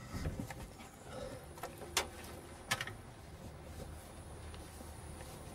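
Quiet restaurant background with a few short, sharp clicks, the clearest about two seconds in and another just under a second later, like glassware or tableware being set down.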